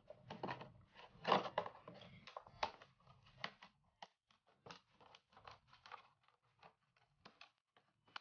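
Scissors snipping through a hard clear plastic blister pack, a run of short, irregular crunching snips with the plastic crackling.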